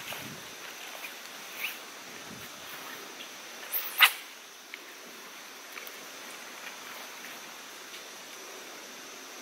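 A fishing rod swishing through the air on a cast, a single sharp whoosh about four seconds in, over a steady outdoor hiss; a few faint ticks follow.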